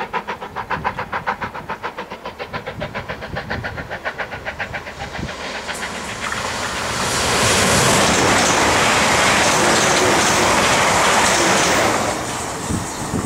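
LMS Black 5 4-6-0 steam locomotive working hard, its exhaust beating rapidly and evenly at about seven beats a second. From about six seconds in, a modern multiple-unit passenger train passing close drowns it with a loud, steady rushing noise that dies down near the end.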